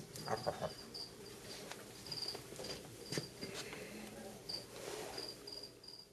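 An insect chirping steadily: short high chirps, about two to three a second, with a few faint knocks and rustles among them.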